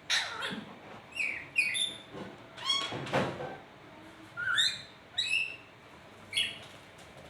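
A nuri parrot giving a series of about ten short, high-pitched calls, some sliding in pitch, in quick irregular succession, falling quiet near the end.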